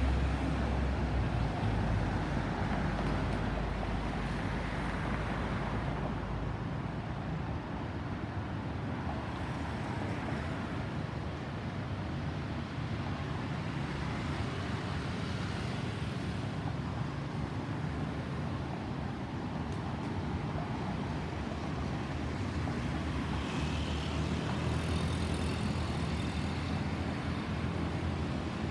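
Steady, distant roar of an Airbus A320's CFM56 jet engines as the airliner passes high overhead, mixed with the hum of road traffic.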